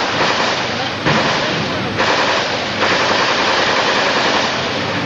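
Automatic gunfire in long, rapid bursts, a new burst starting about every second, easing off near the end.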